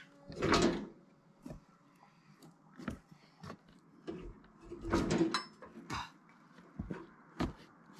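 Irregular clunks and scrapes from the Rima RS31G sawmill's metal sawhead frame being shoved and rocked onto its track rails, the loudest about half a second in and again around five seconds in.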